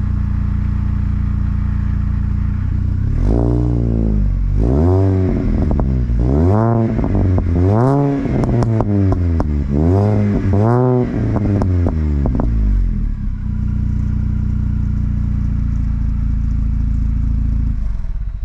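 Supercharged 1.6-litre four-cylinder of a 2006 R53 Mini Cooper S, breathing through a Malian Sports cat-back exhaust. It idles steadily, then is blipped up and back down about six times in quick succession, and settles back to a steady idle.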